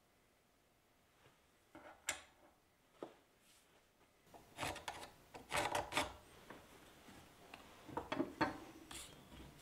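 Small workshop objects being handled and set down on a wooden workbench: a couple of light taps, then bursts of rubbing and clattering as pieces and tools are picked up and put in place.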